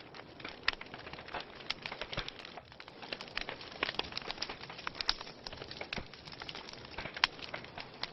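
Wood fire burning in a fireplace, with many irregular sharp crackles and pops over a steady hiss of flame.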